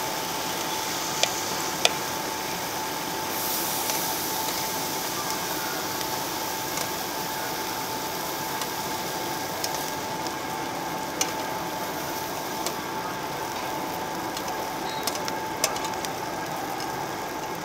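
Marinated pork belly sizzling steadily on a round perforated metal tabletop grill, with a few sharp clicks of metal tongs against the grill plate, over a steady hum.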